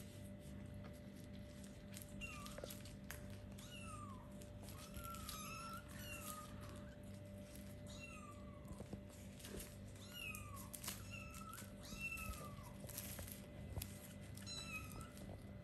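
Four-week-old kittens mewing over and over, short high calls each rising then falling, about one a second, with faint clicks and rustles between them.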